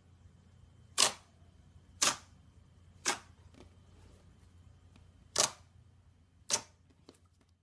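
Slime being pressed and squeezed by hand, giving five sharp air-bubble pops about a second apart, with a longer gap between the third and fourth.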